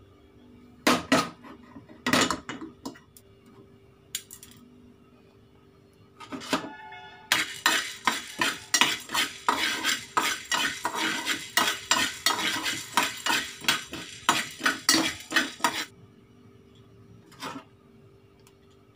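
A steel spoon stirring black peppercorns as they dry-roast in a steel pan, scraping and clinking against the metal about three or four times a second for some eight seconds in the middle. A few single metal clinks come before it, one with a brief ring.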